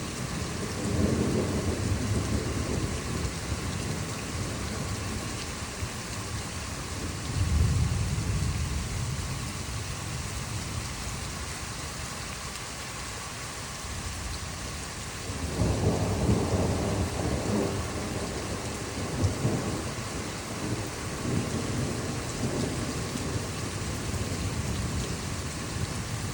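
Thunderstorm: steady rain with rolls of thunder rumbling through it, one about a second in, another about a third of the way through, and a longer, louder roll a little past halfway, followed by smaller rumbles.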